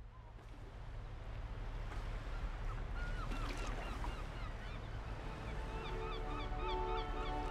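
Riverside ambience: a steady low rumble with birds calling over it, short repeated calls from a few seconds in. Soft music fades in near the end.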